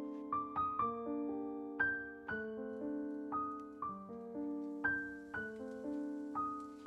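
Background piano music: a gentle melody of single struck notes, each left to ring and fade, about two notes a second.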